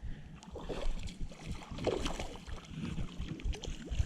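River water sloshing and gurgling in an uneven way, with wind rumbling on the microphone.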